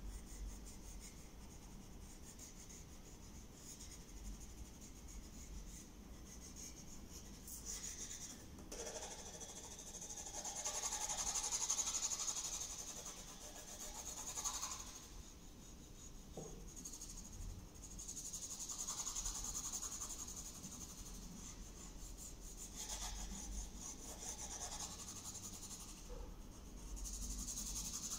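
Graphite rubbing and scratching on drawing paper as a portrait is drawn and shaded: short pencil strokes, then from about eight seconds in longer hissing sweeps a few seconds each, the shading laid on with the graphite held flat.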